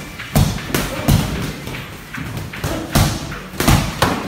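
Boxing gloves landing punches in sparring: sharp thuds in two flurries, three within about the first second and three more about three seconds in.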